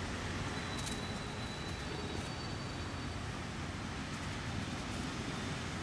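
Steady low rumble of outdoor background noise. About a second in, a faint thin high tone runs for a second or two.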